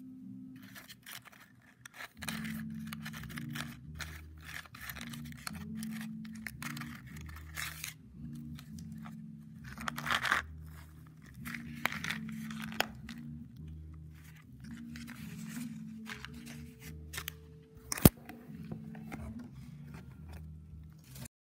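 A cardboard toilet-roll tube and its shredded stuffing being handled, with on-and-off rustling and crinkling over soft background music. A sharp click about 18 seconds in is the loudest sound.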